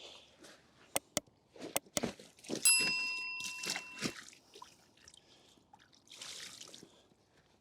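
A few light clicks of gear being handled, then one struck metallic ring that fades out over about a second and a half. A short hiss of trickling water comes later.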